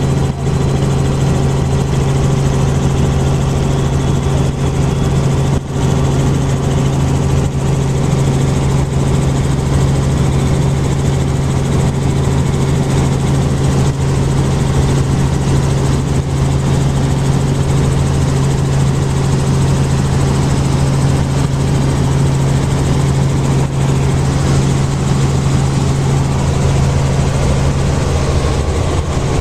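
Helicopter in flight heard from inside the cabin: a loud, steady drone of rotor and engine with a strong low hum.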